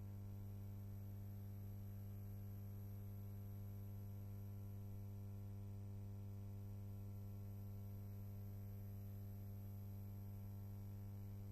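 Steady low electrical mains hum with faint hiss, unchanging throughout; no other sound.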